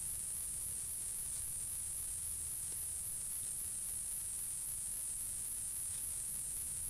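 Steady high-pitched insect chorus, pulsing evenly several times a second, over a low rumble.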